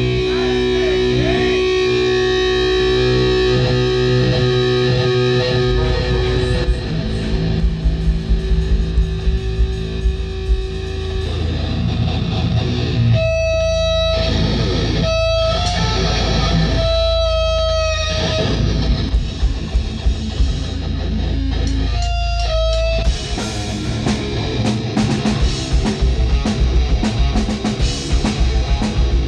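Live heavy rock band playing loud through the venue PA: electric guitar and bass with drums. In the middle the guitar holds long high notes broken by short gaps, and dense drum hits come back in for the last quarter.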